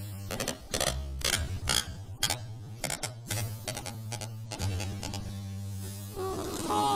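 Rubber balloon being rubbed and squeezed, giving a rapid, irregular run of short squeaks over a steady electrical hum. Near the end a pitched sound starts and falls in pitch.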